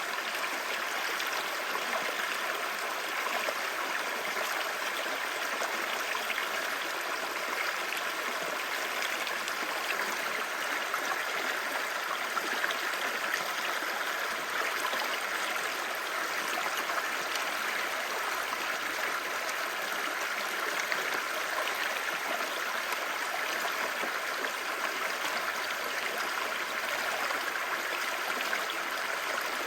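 Clear mountain stream babbling over rocks: a steady, even rush of flowing water.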